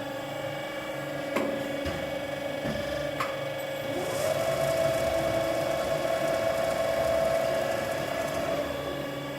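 Berg & Schmid GBS 305 VAI CNC automatic metal band saw running, a steady machine hum. There are two sharp clicks in the first few seconds. Just after the middle a second, higher tone rises in and holds, then falls away near the end.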